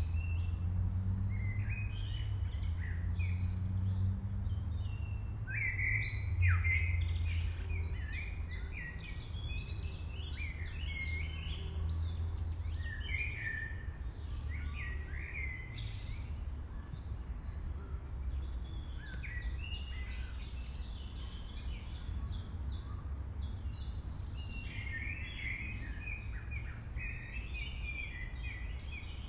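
Songbirds singing and chirping, with short fast trills of repeated high notes, over a low steady rumble that eases after about twelve seconds.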